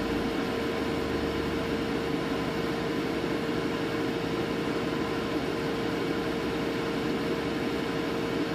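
CB radio speaker giving out steady static hiss, with a steady mid-pitched tone running through it.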